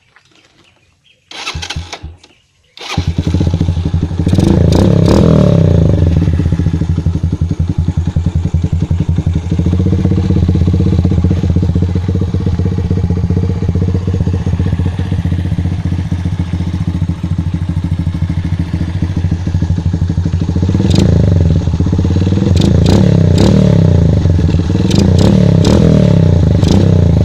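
Skygo Pony motorcycle with an aftermarket Daeng replica exhaust pipe being started: a short burst of cranking, then the engine catches about three seconds in. It settles to a steady idle with one rev soon after starting and three short throttle blips near the end.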